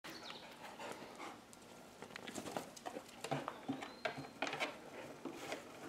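A dog's claws clicking on a concrete floor as it walks, a faint string of irregular light ticks.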